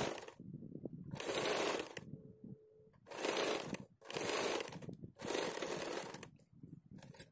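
Small electric domestic sewing machine stitching a seam through cotton fabric, running in short bursts and stopping between them several times as the fabric is guided and repositioned.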